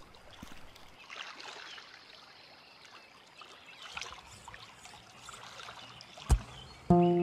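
Faint trickling and lapping of shallow water with scattered small knocks and rustles of footsteps on bamboo poles and logs. About six seconds in comes a single loud thump as a person climbs into a wooden boat, and music starts just before the end.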